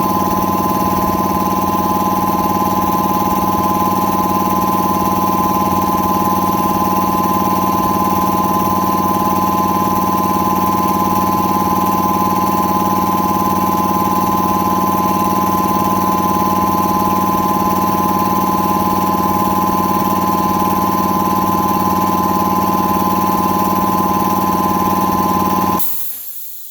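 Electric air compressor with a new pump unit running steadily as it fills the tank, then shutting off suddenly near the end as the pressure switch cuts out, followed by a short hiss of released air.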